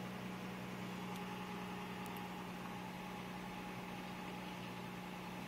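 2008 Toyota Tacoma's stock 4.0-litre V6 idling steadily, a low even hum heard from inside the cab.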